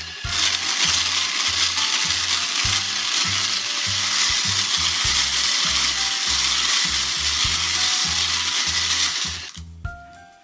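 Hand-cranked wooden toy stand mixer, its beater churning a plastic bowl of small hard coloured balls: a steady, dense clattering rattle that stops about nine and a half seconds in.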